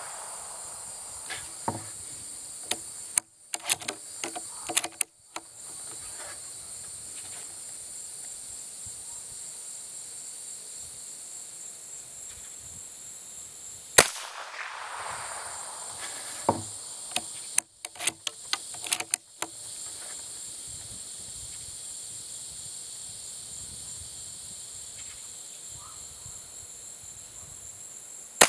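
A Mossberg 817 bolt-action .17 HMR rifle fires once about halfway through: a sharp crack with a short echo, and another shot at the very end. Bursts of quick metallic clicks come a few seconds in and again a couple of seconds after the shot, the bolt being worked, over insects chirring steadily.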